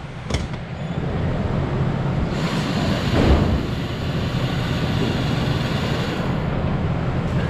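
Motorized target carrier at a shooting lane running along its overhead track: a click, then a steady low rumble with hiss.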